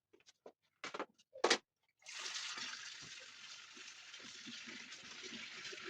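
A few short knocks, then water starts running or pouring steadily about two seconds in.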